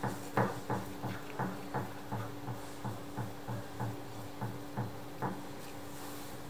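Module nut being screwed tight by hand onto a Gama GDI spray gun, giving a regular light clicking, about three clicks a second, that stops a little after five seconds in.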